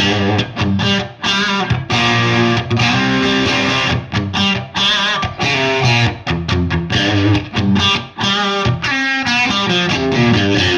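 Electric guitar playing chords and single-note lines with a lightly overdriven tone, some held notes wavering with vibrato.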